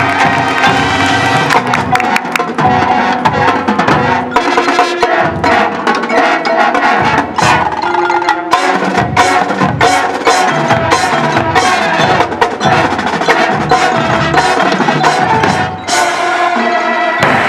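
High school marching band playing a percussion-heavy passage: many sharp drum and block strikes over held, pitched chords, with a brief drop in level near the end.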